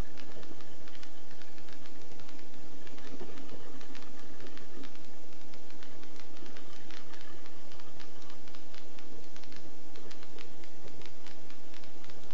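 Helicopter in flight heard in the cockpit: a steady drone of engine and rotor with several steady tones, overlaid by frequent irregular clicks and crackles.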